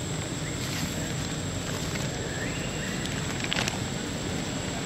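Outdoor background noise: a steady low rumble under a constant thin high-pitched whine, with a couple of sharp clicks.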